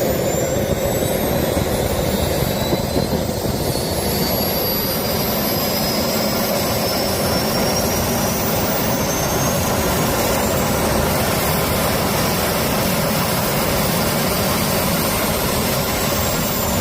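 Jet engine running steadily at high power, the turbine's high whine climbing slowly in pitch through the first half.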